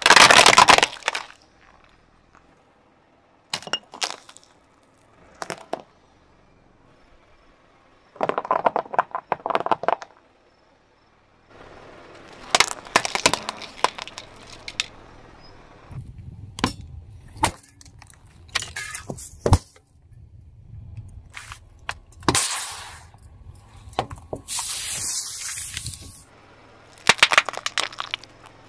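A car tyre rolling over and crushing one small object after another: a run of separate cracks, crunches and snaps of breaking plastic, the loudest right at the start as a plastic toy car gives way. A low rumble of the tyre on asphalt sits under several of the crushes.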